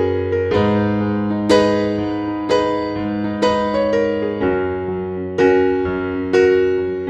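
Background music: piano chords struck about once a second, each ringing out over a sustained bass note.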